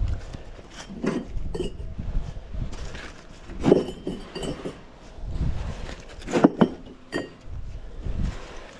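Clay bricks clinking and knocking against each other as they are lifted and stacked by hand on wooden scaffold boards, in a series of irregular sharp clinks.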